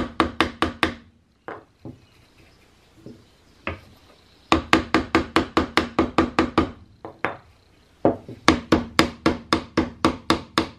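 Brass-headed mallet knocking on a pine block held against a muzzleloading rifle's barrel, tapping the barrel down into its oil-swollen wooden stock. Three runs of quick, even knocks, about five a second, with a few lone taps between.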